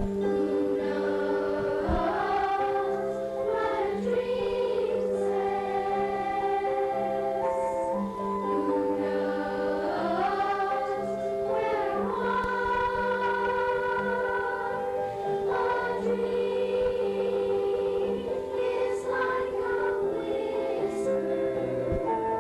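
Youth choir singing, holding notes that move from pitch to pitch.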